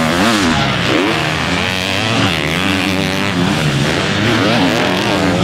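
Motocross bike engines revving on the track, their pitch rising and falling over and over as the riders open and close the throttle, with more than one bike heard at once.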